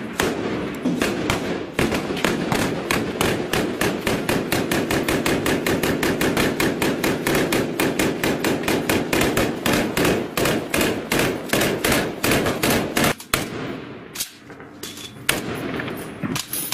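Rapid automatic gunfire, about four shots a second in a long sustained string, with a short break about thirteen seconds in before the shots start again.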